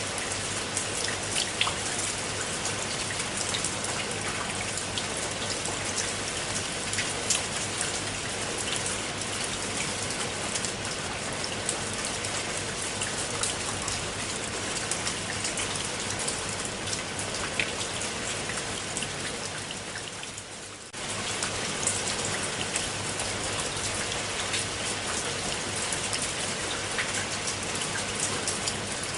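Steady rain falling on a pool of water, a dense even hiss with many individual drops ticking through it. The sound sags briefly about two-thirds of the way through, then cuts back in abruptly.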